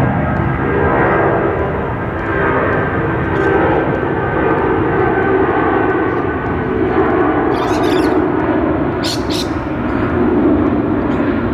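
A steady engine drone, its pitch sagging slowly, over a low rumbling noise, with a few short sharp knocks in the second half.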